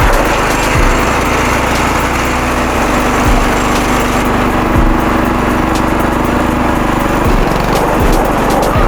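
A small engine running steadily, with a few short low thumps over it.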